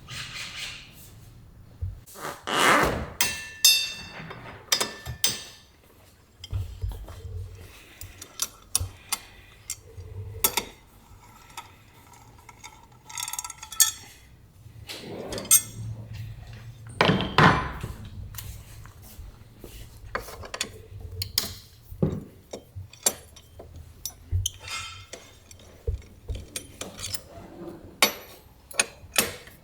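Irregular metallic clinks, clanks and knocks of hand tools and loose metal parts, with a few louder clusters, as a scooter is unpacked from its shipping crate.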